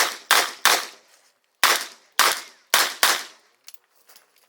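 Competition revolver fired six times in about three seconds, in quick pairs, each shot with a short ringing tail; faint small clicks follow after the last shot.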